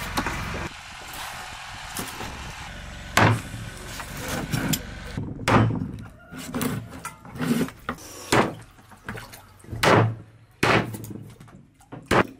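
A steady hum cuts off just under a second in. Irregular knocks and thuds follow, about six loud ones with softer ones between.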